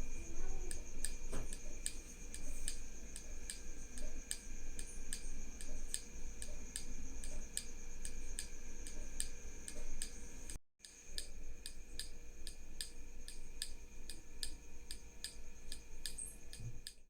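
Steady electronic ticking from a 555-timer bomb-ticking circuit's small speaker, about three sharp clicks a second, over a faint steady high whine. The ticking drops out for an instant about two-thirds of the way through.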